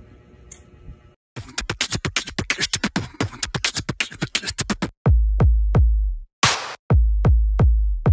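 Electronic outro music: after a second of faint room sound, a fast drum-machine roll of rapid hits starts, giving way about five seconds in to heavy deep bass hits with a short burst of noise between them.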